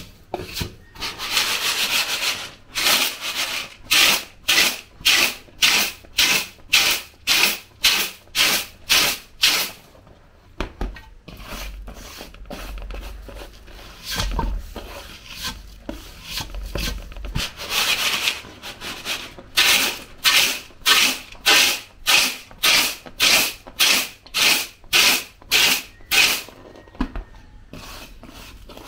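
Hands sweeping and rubbing pounded cocoa beans across an aluminium tray while sorting out the husks, in regular scraping strokes about twice a second. The strokes pause for several seconds in the middle, then resume.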